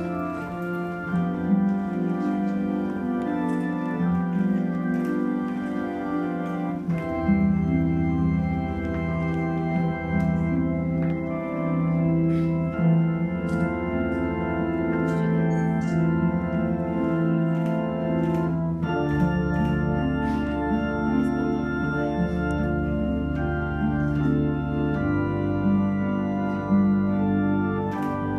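Organ playing slow, sustained chords, with a deep bass line coming in about seven seconds in.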